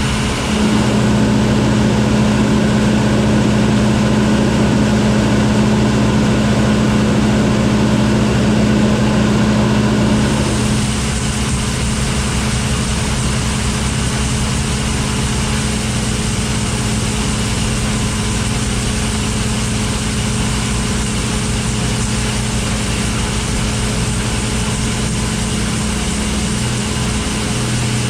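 Farm machinery engine running steadily at a constant speed, a low drone. About ten seconds in the sound changes and becomes a little quieter.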